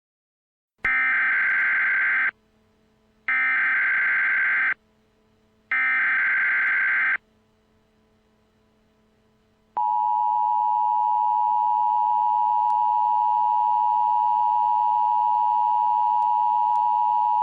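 Emergency Alert System broadcast tones: three short bursts of the warbling digital SAME header, about a second apart, then the steady two-tone EAS attention signal held for about eight seconds. Together they announce the start of a new tornado emergency alert.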